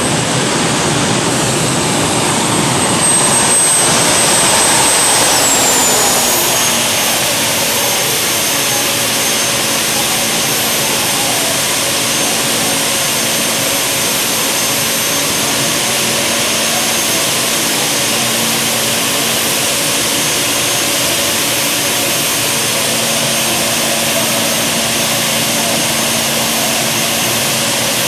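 Gas-turbine engine of a modified pulling tractor running with a loud, steady jet whine. Its pitch drops about five or six seconds in as it spools down, then holds at a steady idle.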